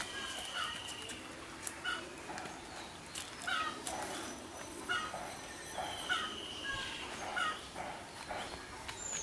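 Irregular short animal calls, with a few longer high whistled bird notes and scattered light clicks.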